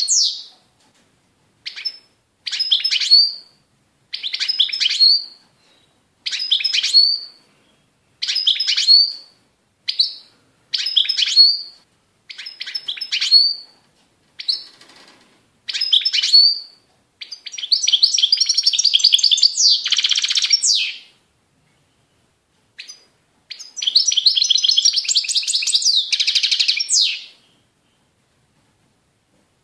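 European goldfinch singing. First comes a run of short twittering phrases about a second long, repeated every second or two, each ending in a bright higher note. Then come two longer, denser twittering phrases of three to four seconds each.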